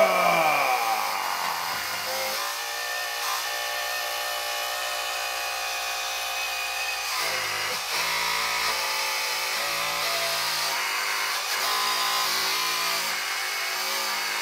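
Earth Digger 4200XL hydraulic RC excavator's brushless-motor-driven hydraulic pump whining as the boom and bucket are worked, its pitch dropping sharply at the start and then shifting every second or two as the valves open and close under load.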